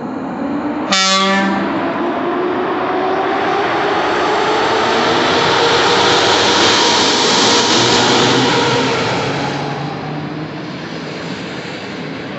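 EP07 electric locomotive sounding a short horn blast about a second in, then pulling away and passing close, its motors whining up and then down in pitch over the rising noise of wheels on rail. The sound peaks as the locomotive goes by and eases off as the passenger coaches roll past.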